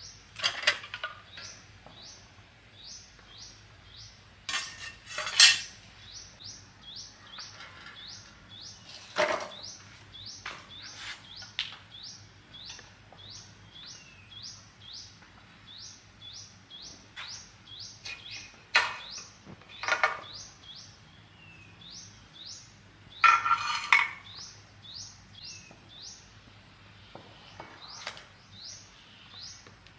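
Scattered metallic clanks and clinks of tools and metal pump parts being handled, about seven in all, the loudest a few seconds in and again near the end. Under them a short, high, rising chirp repeats steadily, two or three times a second.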